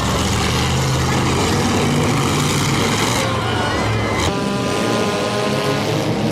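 Demolition derby cars' engines running loud, with the sound changing abruptly a little over four seconds in.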